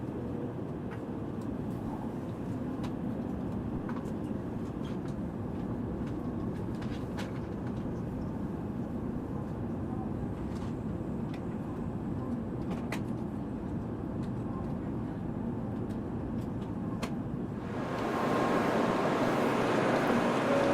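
Shinkansen train noise: a steady low rumble with occasional light clicks. About eighteen seconds in it turns louder and hissier.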